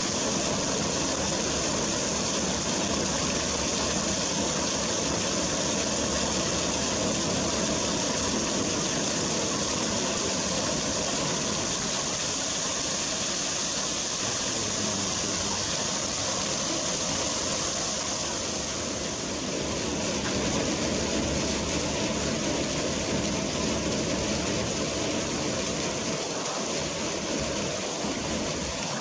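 Steady rush and splash of a fountain: a water jet spouting from a bronze crocodile into the stone basin, with a low rumble underneath.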